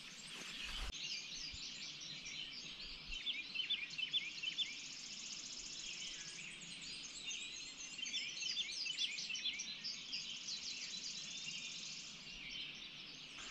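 Dawn chorus of many songbirds singing at once: overlapping chirps and whistles throughout, with a high, rapid trill about halfway through.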